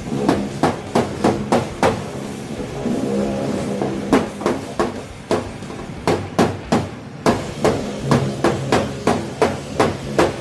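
Hammer blows on the sheet-metal bed side of a pickup truck, struck from behind the panel to knock out a dent. Runs of sharp metallic knocks come about three a second, broken by short pauses, and the panel rings after some of the blows.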